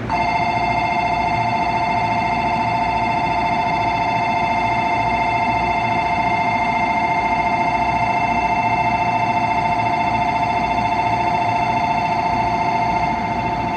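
Railway platform departure bell: an electronic, warbling two-tone ring that starts suddenly and rings steadily without a break, signalling that the train's doors are about to close for departure.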